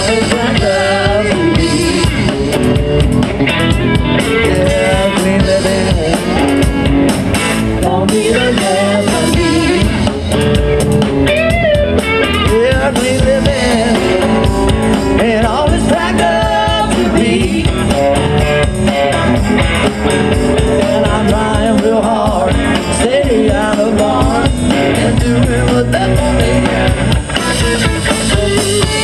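Live blues-rock band playing an instrumental section: electric guitars, electric bass and drum kit, with a lead guitar line that bends up and down in pitch.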